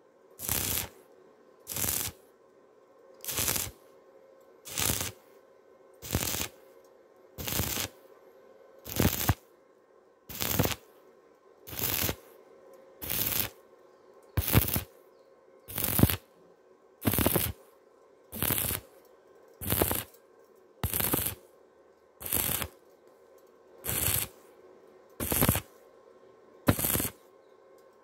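Stick-welding arc crackling in short bursts, about one every second and a half, as the electrode's arc is struck and broken over and over to lay a fillet weld on rusty iron. A faint steady hum sits in the gaps between bursts.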